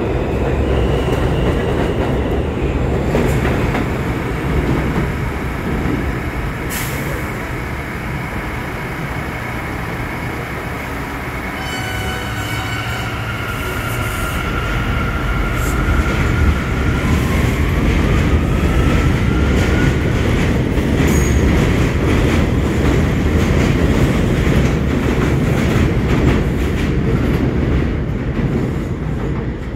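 New York City subway trains on an elevated line: a steady rumble and the clatter of wheels over rail joints. About twelve seconds in, a high electric whine joins, stepping in pitch and then rising.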